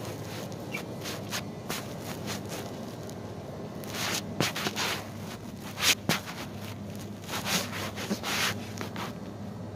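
Irregular rustling and scraping from a person moving and handling things, with louder bursts from about four seconds in, over a steady low background hum.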